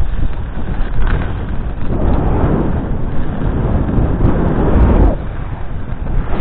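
Wind buffeting a skier's camera microphone during a fast descent on a groomed piste, with the hiss of skis sliding on packed snow. The hiss swells about two seconds in and again near five seconds, as the skis turn.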